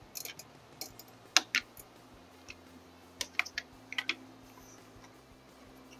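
Light clicks and taps of a small Allen key and hardware being handled while a brake-hose guide is fastened to the fork, in irregular clusters, the loudest about a second and a half in.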